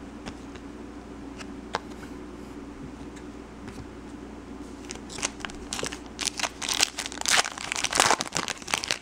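A trading-card pack's wrapper is crinkled and torn open in a dense run of crackles, starting about five seconds in. Before that there is only a low steady room hum and a few soft clicks.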